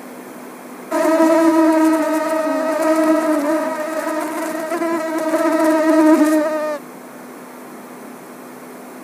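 Mosquito in flight whining: a buzzing tone that wavers slightly in pitch, starting abruptly about a second in and cutting off suddenly about six seconds later.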